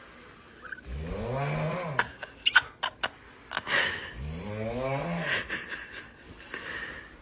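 Snoring: two long snores about three seconds apart, each a drawn-out pitched rasp that rises and then falls in pitch, with a few sharp clicks between them.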